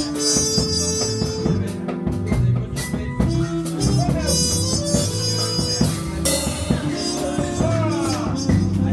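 Music with a drum kit keeping a beat under held instrumental notes, with a few notes bending in pitch about two-thirds of the way through.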